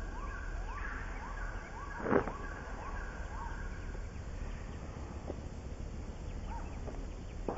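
A run of short rising chirps, a few a second, that fade out about halfway through, with one sharp knock about two seconds in, over a low steady rumble.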